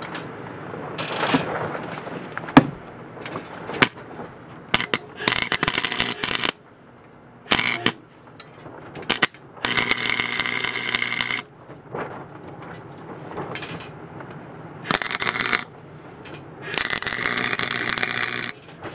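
Wire-feed welder arc crackling in a series of short tack-weld spurts, with two longer runs of about two seconds, as all thread is tacked onto a steel clamp. A few sharp metal clicks come before the welding starts.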